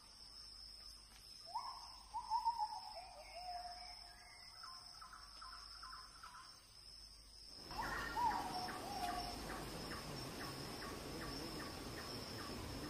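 Forest birds calling: a falling run of whistled notes twice, over a steady high insect drone. From about two-thirds of the way through, a louder outdoor background carries a regular ticking call about twice a second.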